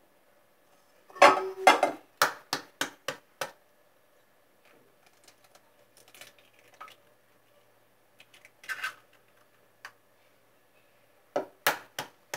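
Eggs knocked against the rim of a stainless steel bowl to crack them: a run of sharp taps, the first ones with a brief metallic ring, then about three taps a second. Softer shell-cracking sounds follow, and a few more taps come near the end.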